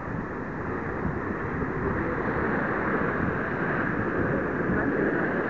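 Wind blowing across the microphone, a steady rushing noise.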